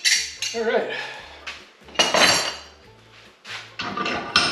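Steel combination wrenches clinking against each other and being handled and set down: a series of sharp metallic clanks and clinks with a brief ring after each.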